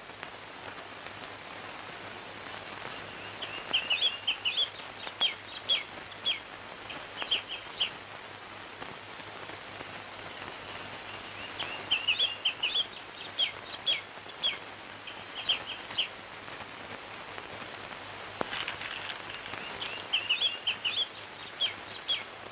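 Small birds chirping in three bouts of quick, high, downward-sliding chirps, with short pauses between the bouts, over a faint steady hum.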